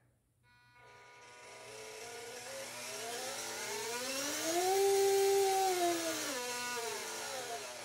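Drive motor and ESC of an FMS 1/18-scale Toyota FJ Cruiser RC crawler, wheels spinning freely as the throttle is eased up and back off. The whine climbs in audible steps to a peak about halfway, then steps back down. The steps are the sign of the transmitter's low-resolution digital throttle, and the ESC sounds very strange.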